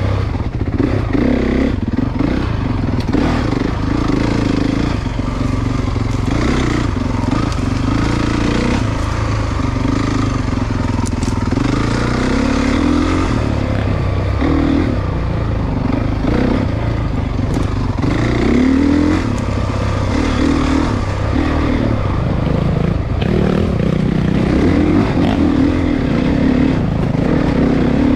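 Single-cylinder four-stroke dirt bike engine being ridden, its pitch rising and falling continuously as the throttle is worked.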